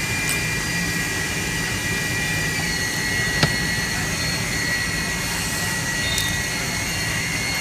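Steady workshop machinery noise, an even hiss and hum with a faint high whine, and one sharp small click about three and a half seconds in.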